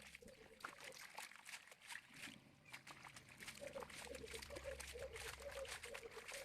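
Faint water trickling and splashing, with many small irregular clicks and drips.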